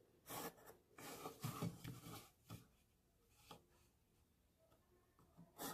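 Pencil drawing lines along the edge of a plastic ruler on paper: faint scratchy strokes in several short runs, the longest about a second long.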